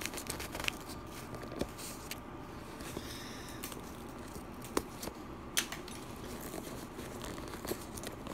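Cardboard shipping box being handled and opened by hand: scratchy rustling and scraping with a few sharp clicks scattered through.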